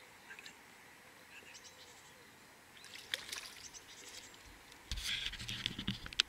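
Light splashing and lapping of pond water near the microphone, louder for a second or so about five seconds in, with a few sharp ticks.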